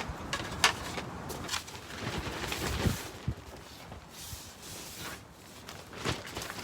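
Tent fabric flapping and rattling in strong, gusty wind: irregular rustles and knocks over a steady wind hiss.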